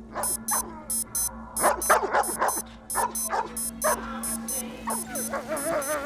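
German Shepherd whimpering and yelping in a run of short, falling cries, then a wavering whine near the end. Over it, an electronic alarm beeps in quick pairs.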